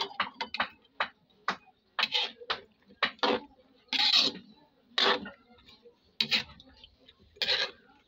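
Metal spatula scraping and clinking against a wok while tossing chopped vegetables, a dozen or so irregular strokes, some sharp clinks and some longer scrapes.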